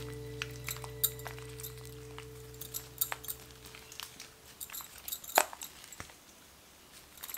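Thick slime being stretched and pulled between the hands, giving scattered sharp sticky clicks and pops, the loudest about five seconds in. Background music fades out over the first half.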